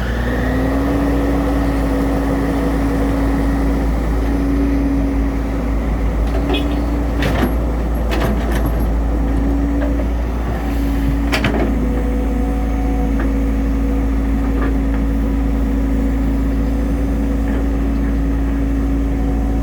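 Excavator's diesel engine running steadily, its tone rising slightly in the first second as it revs up, with a few sharp knocks around the middle.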